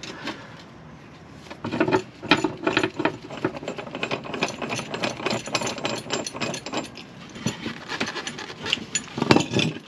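Rapid, irregular clicking and rattling of metal parts while a Land Rover's engine undershield is worked loose, starting about two seconds in and loudest near the end.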